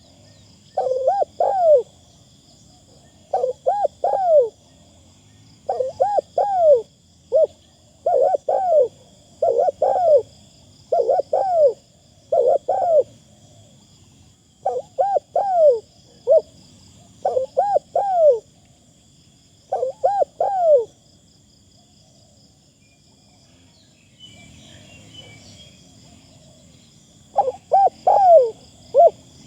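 A spotted dove cooing its phrase over and over, one short group of rounded, falling coo notes about every two seconds. It pauses for several seconds near the end, then starts again.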